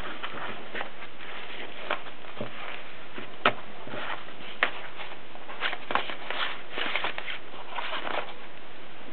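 Voss typewriter clicking at irregular intervals, a dozen or so sharp clicks, the loudest about three and a half seconds in, over a steady hiss.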